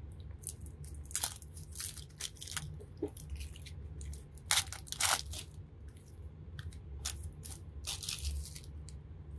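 Clear plastic shrink wrap crinkling and tearing as it is peeled off a stack of trading cards, in irregular crackles that are loudest about halfway through. A steady low hum runs underneath.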